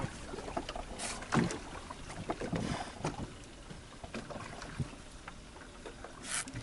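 Small boat on open sea: water slapping the hull and wind on the microphone, with scattered short clicks and knocks of tackle and boat, and a brief hiss near the end.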